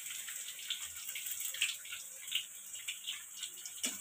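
Garlic cloves and cumin seeds sizzling in hot oil in a kadhai: a steady hiss with many small, irregular crackles.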